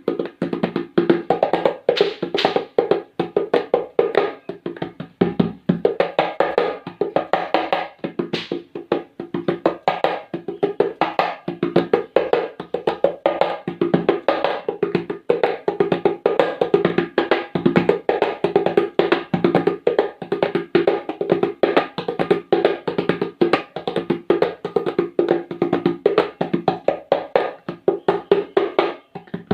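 Hand percussion played in a rapid, steady rhythm of even strokes, imitating a train running along the track.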